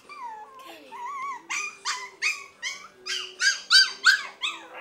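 Maltese puppy whining and yipping in a run of short, high-pitched cries, quickening to about three a second and loudest near the end.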